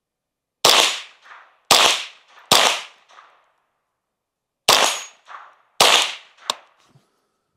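Five shots from an unsuppressed Ruger 10/22 semi-automatic .22 LR rifle. Three come about a second apart, then after a pause of about two seconds two more follow. Each sharp crack is followed by a fainter echo about half a second later.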